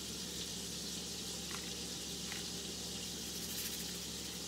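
Catfish filet searing in hot butter-flavored shortening, a steady sizzle with a couple of faint ticks partway through.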